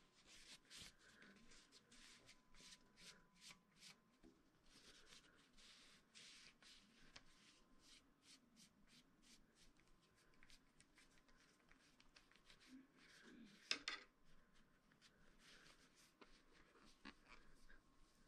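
Faint rubbing of a cloth wiped again and again along a fishing rod, with one sharper click about three quarters of the way through.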